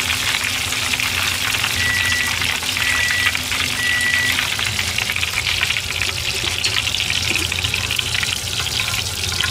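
Chicken karaage deep-frying in a pot of oil: a steady, dense crackling sizzle that eases a little near the end as pieces are lifted out. A sizzle like this is the cook's sign that the pieces are done. Three short electronic beeps sound about two to four seconds in.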